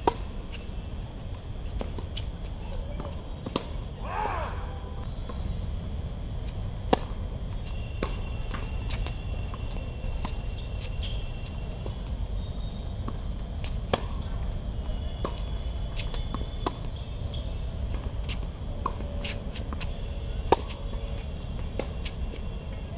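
Tennis balls struck by rackets in rallies: sharp pops a few seconds apart, four of them louder than the rest, over the steady high chirring of crickets and a low background rumble.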